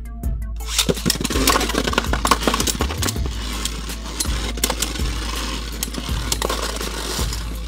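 Two Beyblade Burst spinning tops, Prominence Phoenix and a left-spin opponent, launched about a third of a second in, then whirring across a plastic stadium with rapid clattering hits against each other and the stadium wall.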